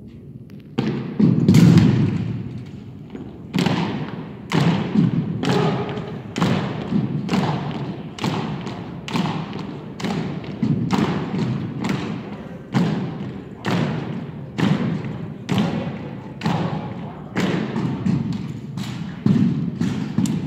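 An armed drill team's feet stamping in unison on a wooden gym floor while marching, one heavy thud about once a second, echoing in the hall.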